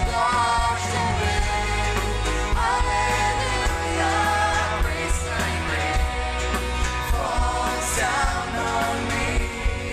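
Live worship band playing: a woman singing lead over keyboard, electric guitar, bass and drums, with a couple of cymbal crashes.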